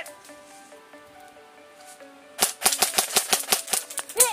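Background music with steady held notes. A little past halfway, a quick string of sharp airsoft gun shots starts, several a second.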